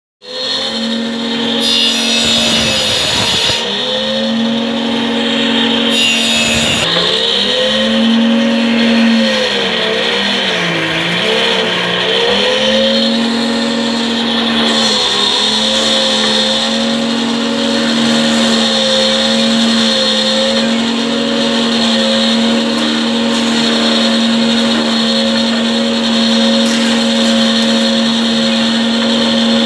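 Woodworking jointer (surface planer) running with a steady electric-motor hum. Several times the pitch sags and recovers as a plank is fed across the cutterhead and the motor takes the load, with a rushing cutting noise during the first two passes.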